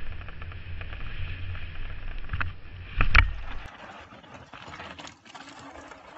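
Mountain bike descending a dirt trail, heard from a helmet camera: wind rumbling on the microphone with rattles and clicks from the ride, and a loud knock a little over three seconds in. Then the sound cuts to quieter outdoor noise with faint clicks as another rider comes down the trail.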